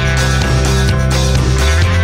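Background music with held bass notes, loud and continuous.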